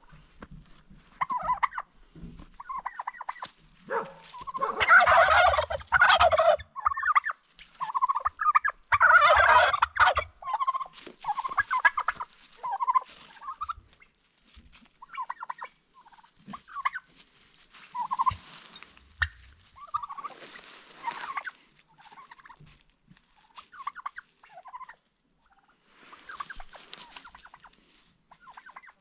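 Several domestic turkey toms gobbling again and again, sounding the alarm at noises in the woods. The calls come in overlapping bursts, loudest twice in the first third, then shorter and fainter gobbles carry on.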